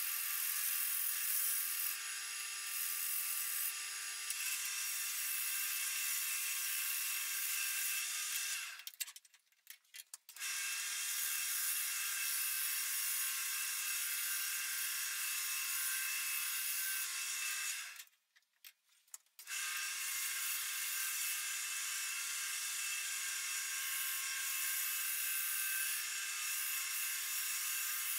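Wood lathe running with a steady motor hum, with a rough rubbing noise from the spinning wooden workpiece as it is worked. The sound cuts out suddenly twice, for a second or two each time.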